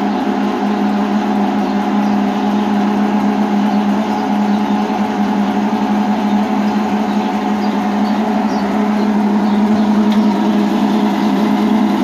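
Electrolux LTC10 washing machine's drain pump running with a loud, steady droning growl while pumping out water. The technician traces the noise to a worn internal bushing in the pump, which lets the rotor play sideways.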